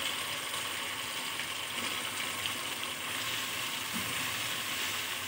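Tomato masala with green chillies frying in oil in a karahi, a steady sizzle, with a spatula stirring it in the pan a few seconds in.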